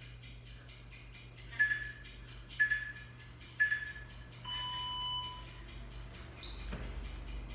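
Workout interval timer counting down: three short beeps about a second apart, then one longer, lower beep that marks the start of the work interval, over a steady fast ticking. Near the end a soft low rumble as the exerciser drops to the floor.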